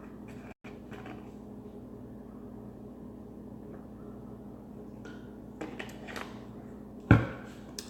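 Kitchen handling noise over a steady low hum: a few light clicks, then one sharp knock of cookware about seven seconds in.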